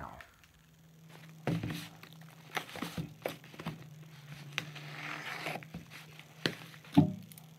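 A cardboard shipping box being handled on a workbench, with scattered knocks and scrapes, and a utility knife slitting the packing tape along the seam a little after the middle. A sharp knock near the end stands out as the loudest sound, over a steady low hum.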